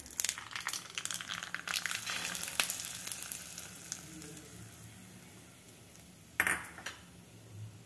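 Hot oil tempering of mustard seeds, dried red chilli and curry leaves sizzling and crackling in a small steel pan, the crackles thinning out over the first few seconds as the tempering is poured over the chutney. A short, louder noise comes about six and a half seconds in.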